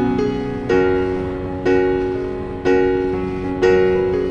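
Background music: slow piano chords struck about once a second, four in all, each ringing and fading before the next.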